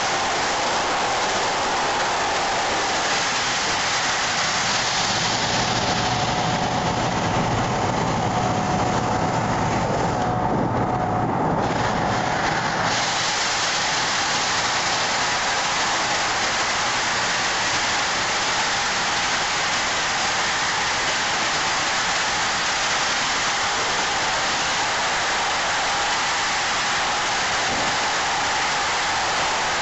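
Sandblaster nozzle firing crushed-glass abrasive on compressed air: a steady, continuous hiss. For a few seconds about a third of the way in the hiss turns duller with a low hum under it.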